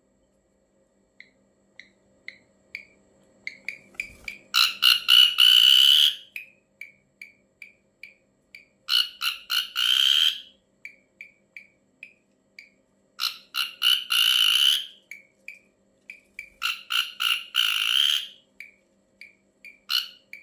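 Ashy drongo calling: a string of short, evenly spaced chip notes broken by four loud, harsh, grating bursts about a second and a half long, each opening with a few quick stuttering pulses.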